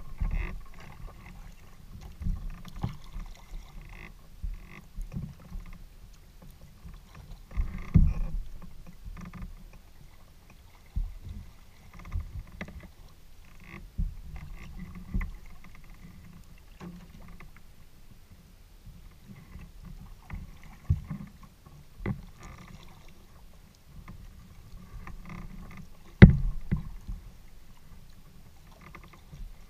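Delta 12.10 kayak being paddled on calm water: irregular paddle splashes and drips with low knocks carried through the hull. There is one sharp knock about three-quarters of the way through.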